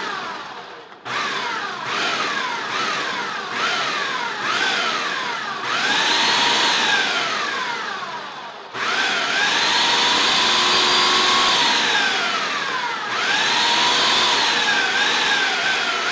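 Ninja Mega Kitchen System's 1500-watt motor driving the dough blade through flour and cold butter cubes in the food processor bowl. It first pulses about five times in quick succession, with a whine rising on each short burst. It then runs in three longer stretches on the dough speed, its whine rising, holding and dropping away each time.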